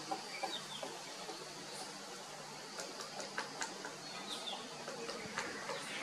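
Flameback woodpecker tapping at tree bark: irregular sharp taps, several in quick succession about three seconds in, among short bird chirps.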